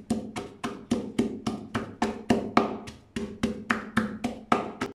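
A pestle pounding garlic cloves in a wooden mortar, a steady run of knocks about four a second, crushing the garlic fine. The pounding stops abruptly near the end.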